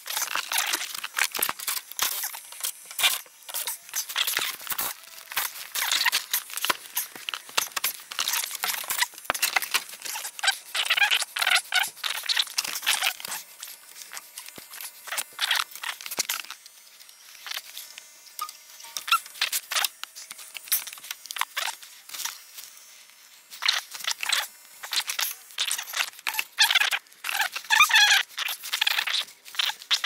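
Close, irregular crinkling, rustling and clicking as a technician handles foil-faced duct insulation, piping and tools in a tight space. The sound thins out for several seconds in the middle, then picks up again.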